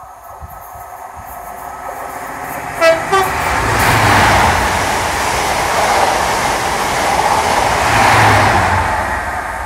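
Class 43 HST sounding its two-tone horn, two short notes, high then low, about three seconds in, then passing at speed. The rush and rumble of the diesel power cars and coaches is loudest as the leading power car goes by and again as the rear power car passes near the end.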